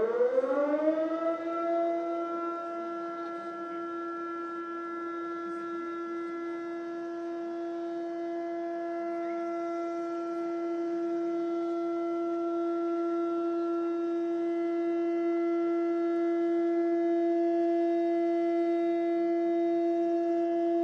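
Warning siren winding up in pitch over the first couple of seconds, then holding one long steady tone that grows slowly louder. It is the siren sounded before a shōsanshakudama, a 90 cm giant firework shell, is launched, signalling that the launch is about to come.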